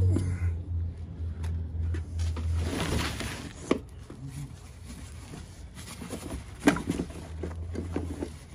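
Cardboard box being handled and its flaps opened: rustling and scraping of cardboard with a few sharp knocks, over a low steady hum that drops away for a few seconds midway.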